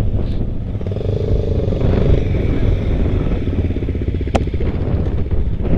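Dirt bike engines idling with an even pulsing rumble, and one sharp click a little past four seconds in.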